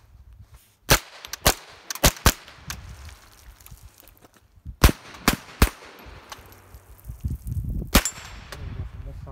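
AR-15 firing .22 LR through a CMMG conversion kit: about eight sharp semi-automatic shots in uneven bunches, four in quick succession, then three, then a single shot near the end.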